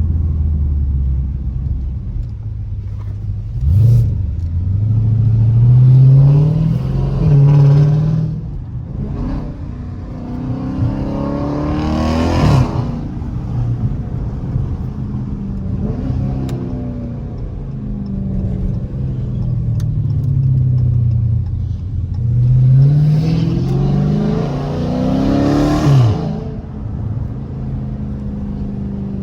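Dodge Challenger Scat Pack's 392 Hemi V8 with gutted catalytic converters, heard from inside the car, pulling hard through the gears. The engine note climbs and drops at a gear change about twelve seconds in and again about twenty-six seconds in, with lighter, falling stretches between.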